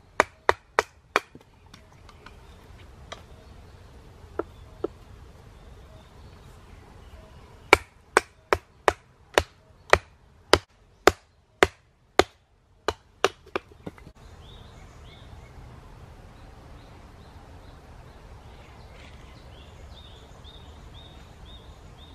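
Small hatchet chopping kindling on a log: four quick strikes, two more a few seconds later, then a steady run of about a dozen strikes at roughly two a second that stops about fourteen seconds in. Faint bird chirps near the end.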